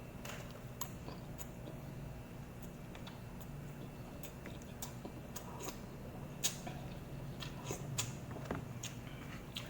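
Eating sounds: a person chewing food, with scattered wet mouth clicks and smacks, the sharpest about six and a half seconds in, over a steady low hum.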